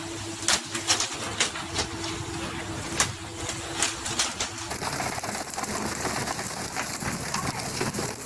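Tuna landing on a fishing boat's deck in sharp thuds, one every half second to a second, over a steady hum. About halfway through this gives way to a continuous hiss of splashing sea water.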